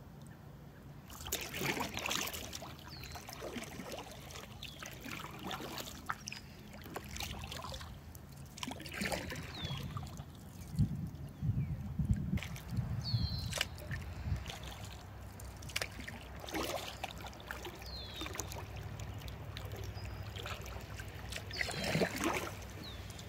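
Kayak paddle strokes through river water, a splash every few seconds, with water trickling off the blade in between.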